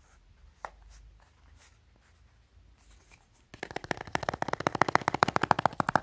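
A small cardboard lighter box being handled, with a few light clicks. From about three and a half seconds in comes fast, even scratching on the box's surface, many strokes a second.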